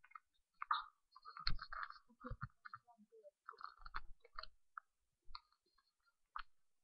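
Handling noise from a webcam being picked up and moved about: irregular clicks, knocks and rubbing against its microphone.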